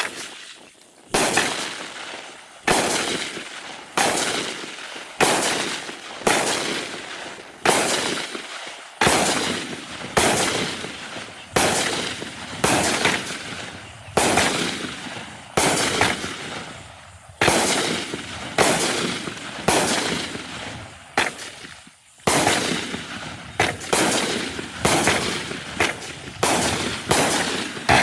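Black Cat Gemstones firework cake firing a long string of shots, one sharp bang about every second and a quarter, each trailing off before the next, with the shots coming faster near the end.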